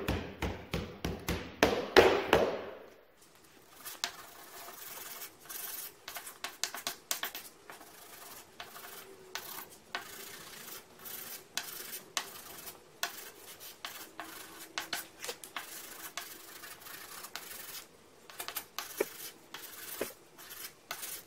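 A freshly router-cut paper gasket being hand-sanded with 600-grit sandpaper and a sanding block to clear off the fuzzy fibres left by the router bit. It starts with a quick run of louder, rapid rubbing strokes for the first few seconds, then settles into quieter, uneven back-and-forth rubbing strokes.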